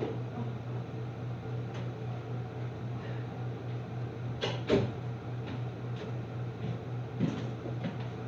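A steady low hum, with two light knocks close together about four and a half seconds in and a fainter knock near the end.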